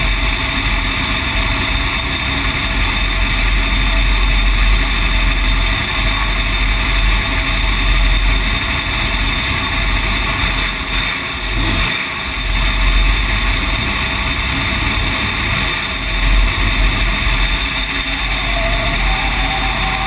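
Dirt-track race car engine running steadily, heard from inside the open cockpit, with the engines of the surrounding race cars mixed in.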